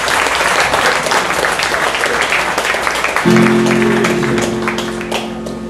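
A congregation applauding with dense clapping. About three seconds in, a held musical chord comes in under the fading clapping.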